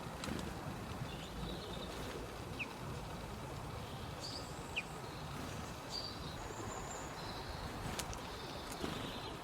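Small birds giving short, faint, high chirps every second or two over a steady low rumble of background noise.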